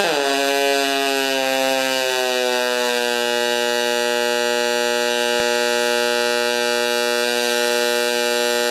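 Pulsed MIG arc from an HTP Pro Pulse 220 welding aluminum with 4043 wire: a steady pitched buzz that drops in pitch in the first half-second after the arc strikes, then holds. The gun's liner is worn, giving a long arc and sooty welds, though the arc sounded pretty good to the welder.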